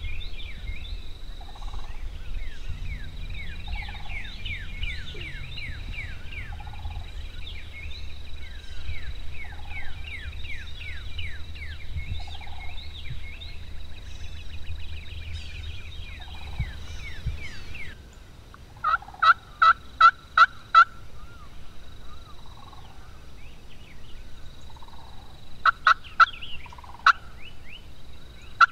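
Wild turkey yelps: a loud run of six evenly spaced yelps at about three a second, two-thirds of the way in, then a shorter run of three or four near the end. Before them, many small birds of the dawn chorus chirp.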